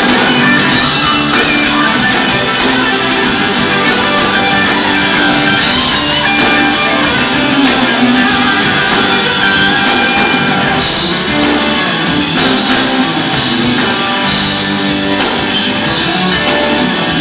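Live rock band playing loudly, electric guitars to the fore over the full band.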